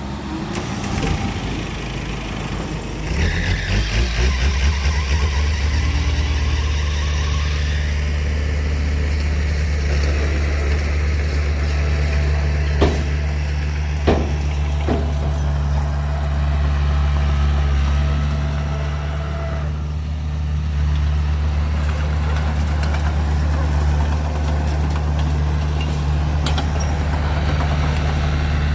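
Heavy diesel engine of earthmoving machinery running steadily, picking up about three seconds in with a hiss for a few seconds. Two sharp knocks come around the middle.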